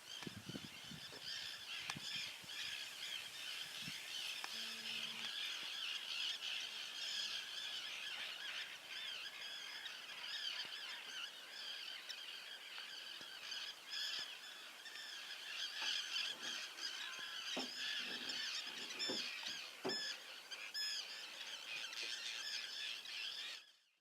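Many waterbirds calling at once, an unbroken chorus of overlapping high calls that cuts off suddenly near the end.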